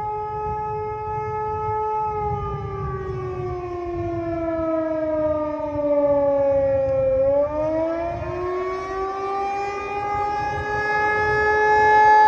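Outdoor tornado warning siren sounding in a test: one steady tone that slides down in pitch over about five seconds, then climbs back up and holds, growing louder near the end.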